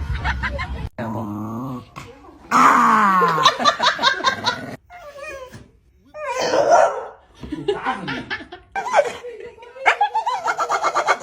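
A dog's vocal sounds and people laughing, in a run of short clips that cut abruptly from one to the next.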